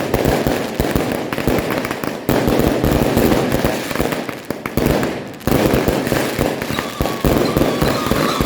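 Fireworks and firecrackers going off in a dense, continuous crackle of rapid bangs, easing briefly about two seconds in and again about five seconds in. A thin steady tone joins near the end.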